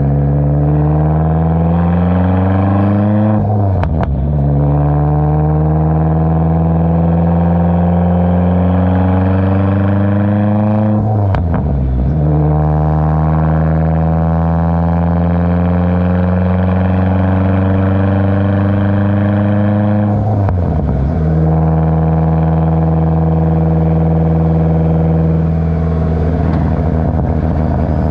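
Dodge SRT-4's turbocharged 2.4-litre four-cylinder, fitted with big cams and a big turbo, heard at the MPx titanium dual exhaust under acceleration. The exhaust note climbs steadily in pitch and drops sharply at each upshift, about 4, 11 and 20 seconds in. It then holds a steady cruise and breaks up as the throttle eases near the end.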